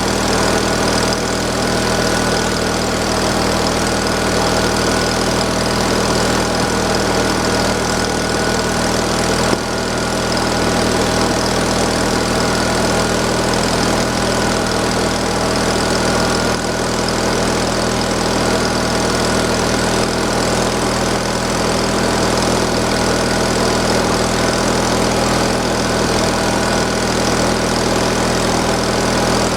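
Gasoline engine of an old wood splitter running steadily at idle while it warms up, just started after sitting unused for a while. A single brief knock about a third of the way through.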